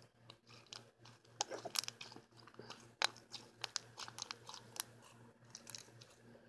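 Slime being squeezed and poked between fingers close to the microphone, making quiet, irregular small wet clicks and pops. It is a batch of slime having lotion worked in to loosen it.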